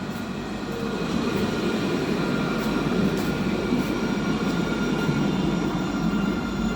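Nottingham Express Transit tram running in to the stop. A steady rail rumble, with faint high whining tones from the tram's motors or wheels on top.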